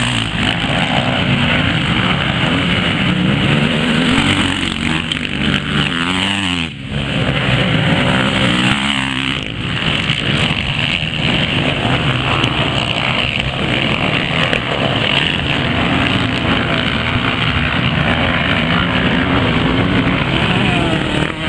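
Several off-road racing dirt bikes running on a dirt track, their engines revving up and down in a continuous overlapping drone, with a short dip in level about seven seconds in.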